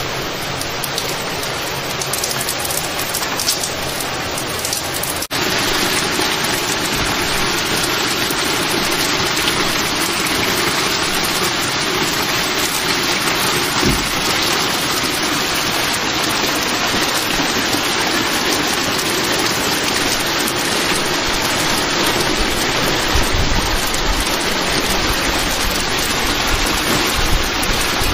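Heavy rain pouring down steadily, louder from about five seconds in, with low rumbles near the end.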